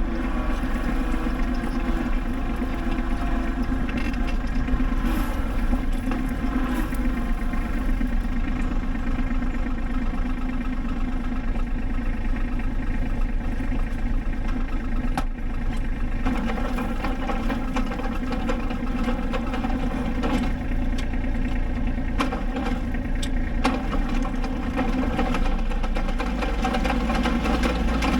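Kubota B7500 compact tractor's three-cylinder diesel engine running steadily, with a few faint clicks.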